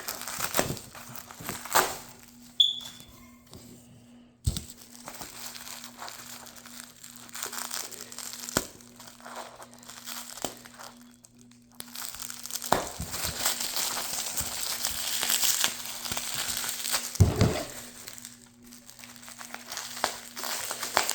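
Packaging wrapping being unwound and crinkled by hand, with irregular rustling and small clicks that grow busier in the second half.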